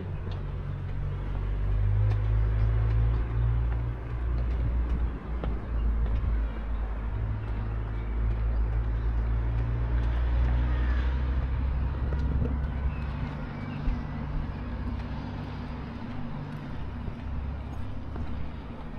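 A motor vehicle's engine running close by, a steady low rumble with a hum that eases off somewhat in the last third, over general street noise.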